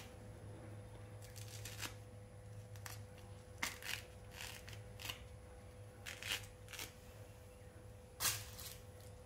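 Orange peel being torn off by hand: faint scattered rips and rustles in short bursts, the sharpest one near the end.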